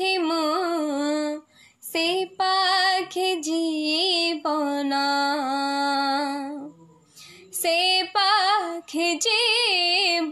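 A woman singing an old Odia song unaccompanied, in long held notes with vibrato, broken by two short pauses.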